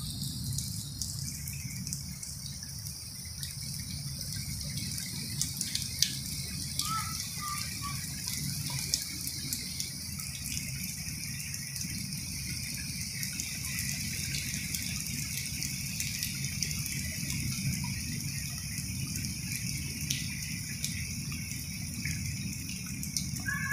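Heavy rain falling steadily onto a waterlogged courtyard, an even hiss dotted with many small drop splatters.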